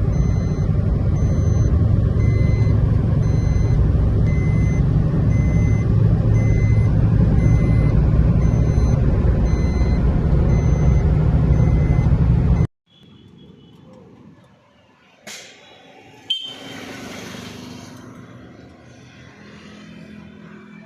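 Maruti Suzuki Alto on the move: a loud, steady rumble of road and wind noise. It cuts off abruptly about 13 seconds in, giving way to much quieter surroundings with two sharp knocks.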